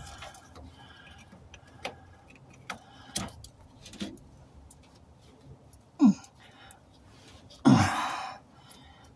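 Scattered small clicks and taps of hands working the parts of a truck's fuel pump assembly down in the tank opening, with a brief grunt about six seconds in and a loud huff of breath near eight seconds.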